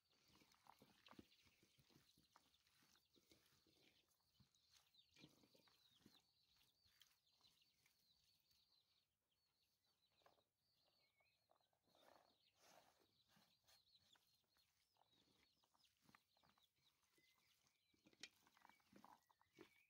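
Very faint, irregular squelching and clicking of hands kneading raw chicken pieces with sliced onion and spices in a metal tray.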